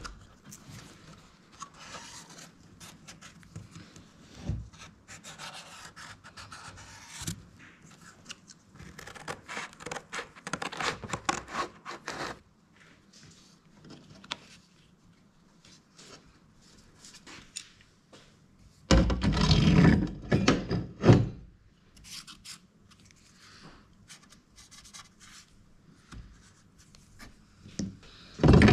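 Hands handling parts and templates on an aluminium plate on a workbench: scattered rubbing and scraping, a louder clattering stretch about two-thirds of the way through, and a sharp knock near the end.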